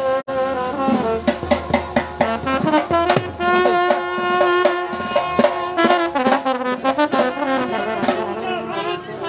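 Brass band music: brass instruments play a tune in held notes over frequent drum beats.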